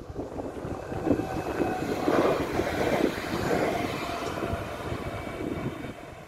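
Koleje Śląskie electric multiple unit passing by. The rumble of its wheels on the rails, with a faint electric whine, swells to a peak two to three seconds in, then fades as it moves away.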